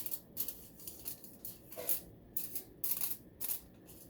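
Aluminum foil crinkling in short, irregular crackles as a cut oval of it is handled and its edges smoothed flat.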